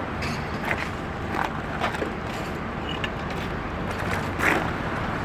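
Outdoor city ambience: a steady traffic rumble with scattered short knocks and faint distant voices.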